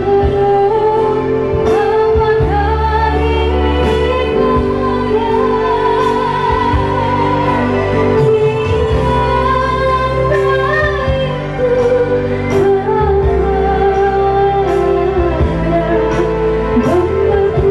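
A woman sings through a handheld microphone and PA, holding long, wavering notes. Amplified backing music with sustained chords and a bass line plays underneath.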